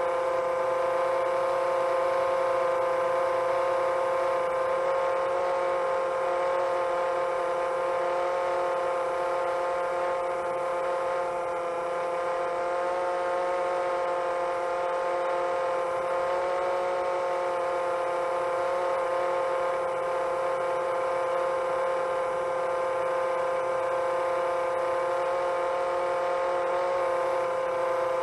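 Quadcopter motors and propellers humming at a steady cruise pitch, with a slight rise and fall in pitch about two-thirds of the way through.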